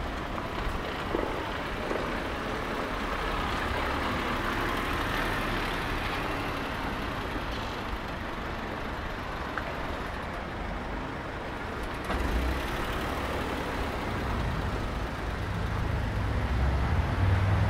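City street traffic: a steady hum of passing road vehicles, with a deeper engine rumble from a heavier vehicle growing louder near the end.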